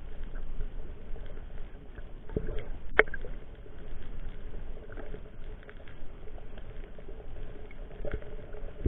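Muffled water sloshing heard through an underwater action camera's waterproof housing, with one sharp knock about three seconds in and a few fainter knocks.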